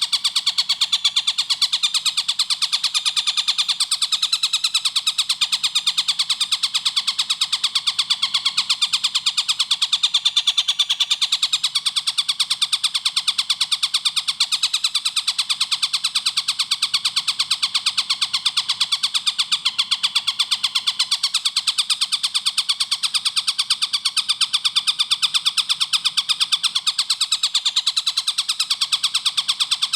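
Tengkek buto kingfisher calling in a fast, unbroken series of sharp, high notes, many a second without a pause.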